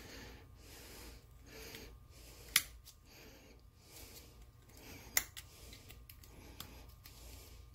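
Quiet handling sounds of gloved hands working with small hand tools: soft rubbing and hiss, with two sharp clicks about two and a half seconds apart and a fainter one near the end.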